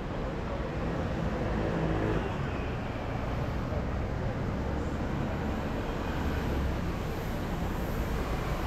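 City street traffic: vehicle engines running past with a steady low rumble, and one engine's hum standing out for a couple of seconds near the start.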